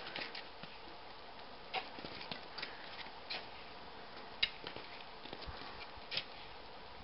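Climbing steps in steep firm snow: boots kicking in and an ice axe planted, heard as irregular sharp crunches roughly every second or so, over a faint steady hiss.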